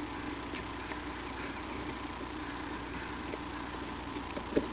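Steady electrical hum from a wildlife nest-cam microphone, with a few faint clicks and a short knock near the end as bald eagles shift their talons on the stick nest.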